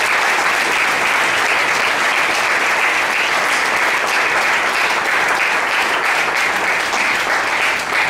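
Congregation applauding loudly and steadily, a dense crowd of hands clapping.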